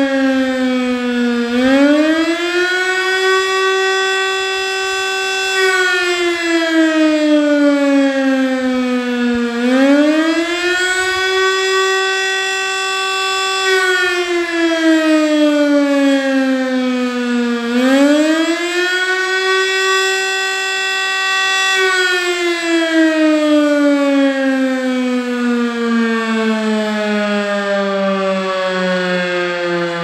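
Civil-defence siren on a fire-station roof sounding the 'Alarm' signal of a civil-protection test: a rising and falling wail. Each cycle climbs, holds its top pitch for a few seconds and slides down, repeating about every eight seconds; after the third climb it falls in one long slow glide, winding down.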